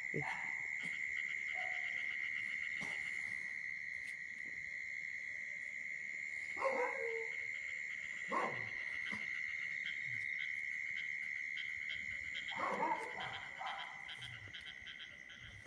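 Night insects calling in a steady, unbroken high-pitched chorus. Three short falling cries come over it, about a third of the way in, just after the middle and near the end.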